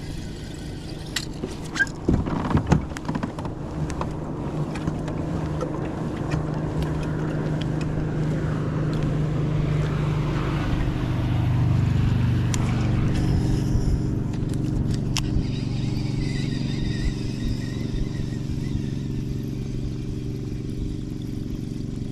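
A boat motor hums steadily, growing louder toward the middle and easing off after, with a few sharp knocks and clatter near the start.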